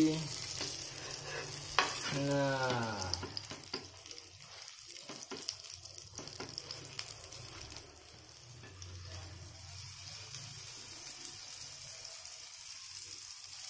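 Egg martabak sizzling as it shallow-fries in oil on a flat griddle pan, with a metal spatula scraping and pressing it, while it is left to turn crisp. A short voice sound, falling in pitch, comes about two seconds in.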